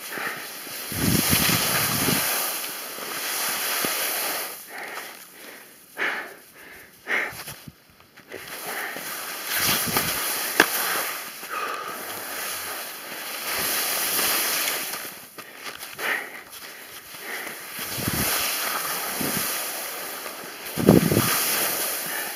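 Skis scraping and hissing on hard snow in a series of turns, the noise swelling and fading every few seconds, with wind on the microphone and a few low thuds.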